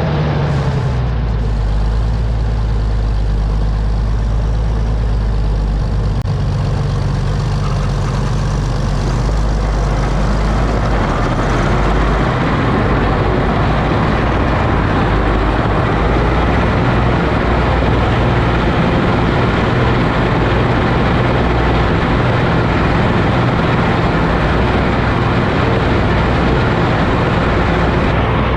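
Oliver OC-6 crawler tractor's engine running steadily and loudly with a deep, even note.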